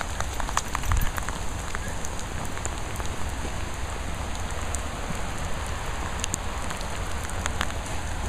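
Steady rain falling on wet tarmac, with sharp ticks of individual drops landing close by. A low rumble runs underneath, with one bump about a second in.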